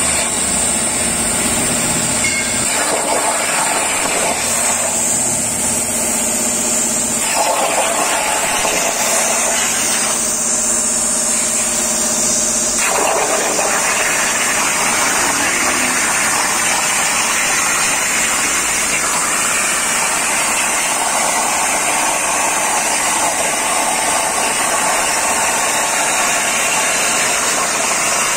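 CNC plasma cutter torch cutting steel plate: a loud, steady high hiss of the plasma arc over a rougher rushing noise, its tone shifting twice in the first half as the cut goes on.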